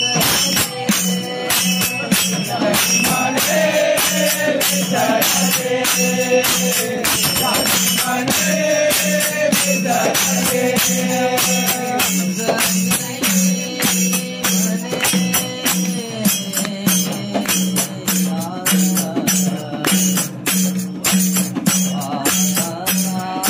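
Devotional Marathi bhajan to Vitthal sung by a group of voices. Jingling hand percussion keeps a fast, even beat under a steady low pulse.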